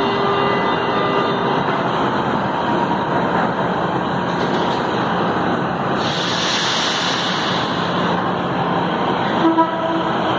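São Paulo Metrô K-series train at an underground station platform, with a steady rumble throughout. There is a short hiss of air about six seconds in. Near the end the train starts pulling away.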